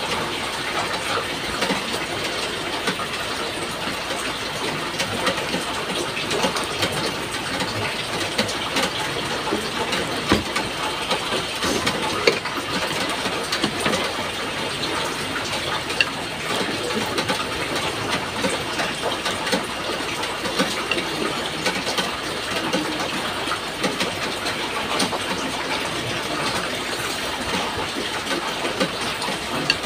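Close eating sounds: chewing and small mouth and utensil clicks, over a steady background noise.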